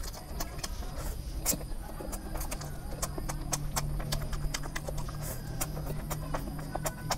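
Close-miked eating of instant noodles: strands slurped into the mouth and chewed, with many quick wet mouth clicks and smacks. From about two and a half seconds in, a low steady hum runs underneath.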